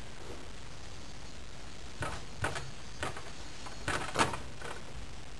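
A metal spoon working oil from a small steel bowl onto a paratha in a nonstick pan. It makes a handful of short knocks and scrapes in the second half, the loudest about four seconds in.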